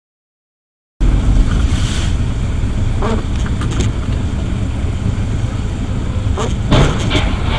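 Silent for the first second, then steady low rumble and hiss of a car driving on a wet road in rain, heard from inside the cabin, with a few short clicks and knocks.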